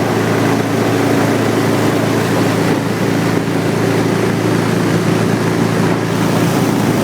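Longtail mud motor pushing a mud boat at a steady speed, its engine note holding even, with wind noise on the microphone over it.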